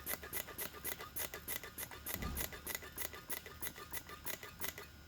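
Hand vacuum pump being worked in quick, even strokes, about five clicks a second, drawing vacuum on a Husqvarna 372 chainsaw's crankcase to test its crankshaft seals for leaks; the pumping stops near the end.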